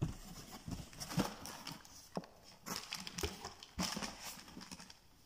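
Irregular knocks, taps and light scrapes of a cardboard shoebox being handled and opened.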